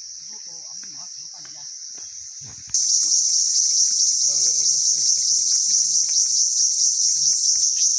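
Steady high-pitched shrill of an insect chorus that turns suddenly much louder about three seconds in, with faint voices underneath.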